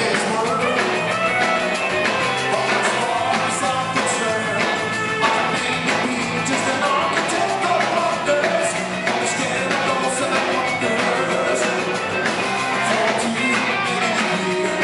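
A rock band playing live through a venue PA, recorded from the crowd: electric guitars, bass, drums and keyboards, with a sung lead vocal over them.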